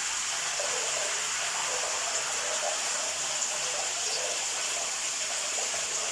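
Steady rush of running water in a bathroom, an even hiss that holds without a break.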